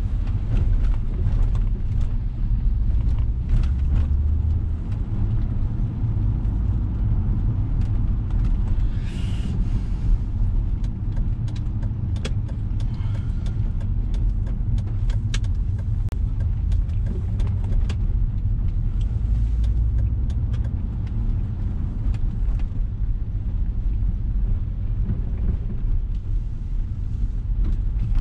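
Steady low engine and road rumble inside the cabin of a moving 2002 Volvo V70, with scattered light ticks and a brief rushing hiss about nine seconds in.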